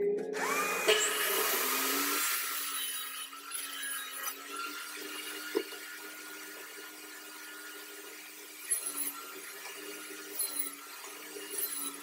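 Table saw motor spinning up with a rising whine, then running steadily, with a few brief louder bursts in the second half.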